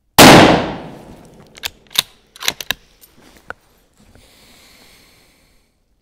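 A single shot from a Bergara B14 Sporter bolt-action rifle in .308 Winchester, ringing out and dying away over about a second. It is followed by a run of sharp metallic clicks over the next two seconds as the bolt is worked to eject the spent case and chamber the next round.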